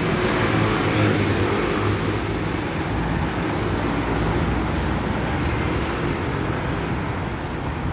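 City street traffic: cars driving past close by, a steady road noise with a low engine hum that is a little stronger in the first couple of seconds.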